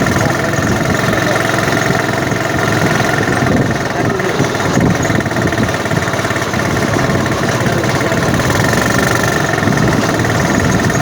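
Honda Supra single-cylinder four-stroke motorcycle engine, fitted in a small car, running steadily.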